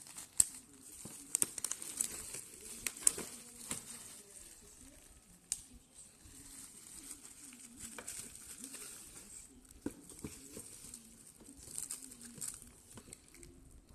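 Crinkling and rustling of packaging being handled, with many sharp clicks and knocks scattered throughout.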